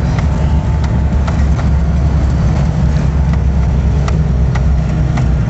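Car cabin noise while driving on a rough mountain road: a steady, loud low rumble from the engine and tyres, with scattered sharp ticks and rattles.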